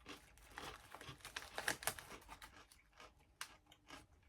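Eating crunchy corn snacks close up: irregular quick crackles and crinkles of the chips and their bag.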